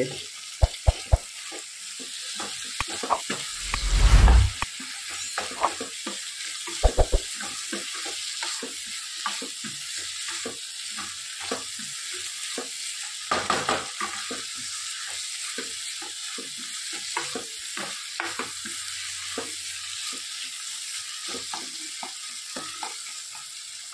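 Paneer and chickpea bhurji sizzling in a nonstick kadai while a spatula stirs and scrapes through it, with irregular taps against the pan. A couple of louder knocks stand out, about four and seven seconds in.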